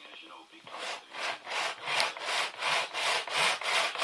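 Hand saw cutting with quick, even back-and-forth strokes, about three a second, starting just under a second in.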